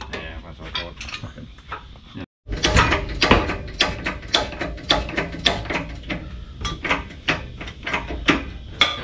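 Hand-pumped hydraulic shop press being worked against a differential housing: a quick run of sharp metallic clicks and knocks from the pump lever strokes, about two to three a second. Before an abrupt cut about two seconds in, clunks of a steel press tube being handled.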